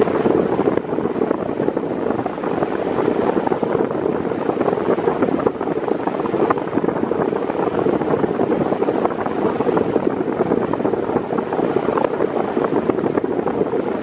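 8-blade Mondial 40 cm 140 W floor fan running steadily at medium speed, its airflow rushing and buffeting the microphone at close range.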